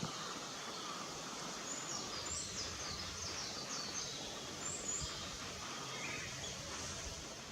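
Several faint, high bird chirps over a steady outdoor background hiss.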